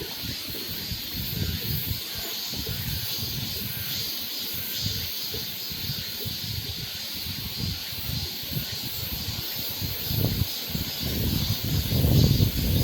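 Mountain wind gusting against the microphone in low, uneven rumbles over a steady high hiss of the forest, the gusts growing stronger near the end.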